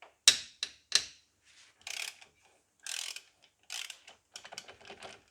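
Socket ratchet undoing a 13 mm retaining bolt: a few sharp clicks first, then short bursts of ratcheting strokes about once a second, coming quicker near the end.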